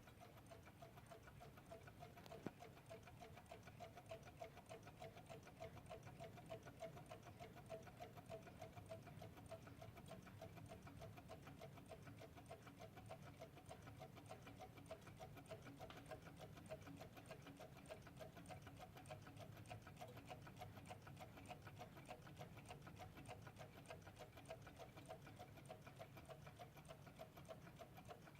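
Vintage Shanghai-made mechanical alarm clock ticking, faint, rapid and even.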